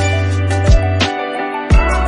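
Background music: sustained chords over a steady beat of deep drum thumps and light cymbal ticks.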